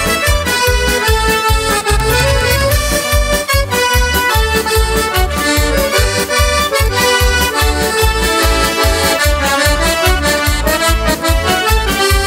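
Instrumental folk music led by an accordion over a steady bass beat, with no singing.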